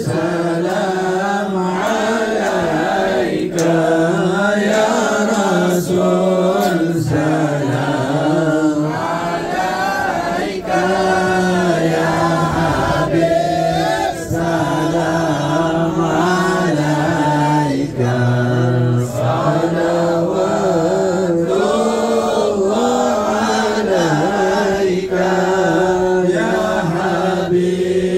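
Group of men and boys chanting a devotional salawat in praise of the Prophet in unison, a continuous sung chant with no pauses.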